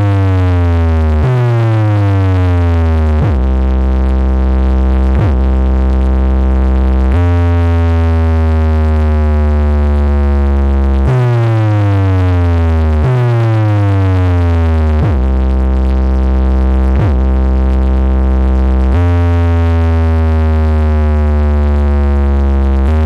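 Electronic bass-test music played very loud through a large DJ speaker stack. Deep sustained bass notes alternate with falling synth glides, and the pattern repeats every few seconds.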